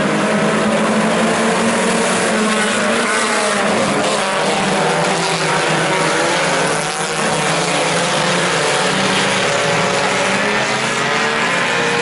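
A pack of IMCA Sport Compact race cars' four-cylinder engines at full throttle, many engine notes overlapping and rising and falling as the field accelerates and races around the dirt oval.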